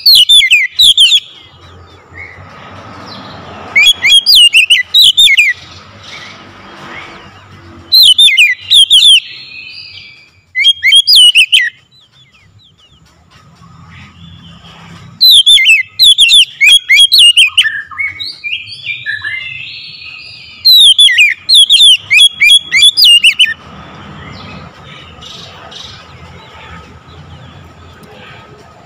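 Oriental magpie-robin (kacer) singing loud, ringing phrases of sharp whistled notes that sweep steeply in pitch. The phrases come in bursts of a second or two, with pauses of a few seconds between, and a softer, more varied warble in the middle.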